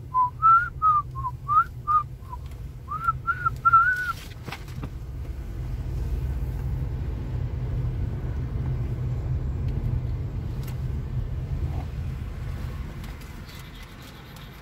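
A person whistling a short tune of quick notes with little slides, for about the first four seconds, over the steady low rumble of a car driving; after that only the car's rumble goes on.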